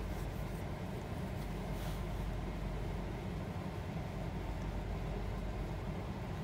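Steady low rumble and hiss from the gas stove, where pork ribs and pineapple simmer in a frying pan over the burner flame.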